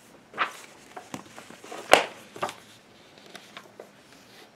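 Magazines and papers being handled and shuffled: a few short rustles and light knocks, the sharpest about two seconds in.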